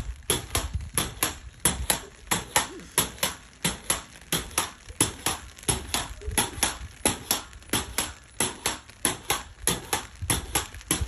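Pogo stick bouncing steadily on paving slabs: a sharp knock with each landing, in an even, fast rhythm of a few knocks a second.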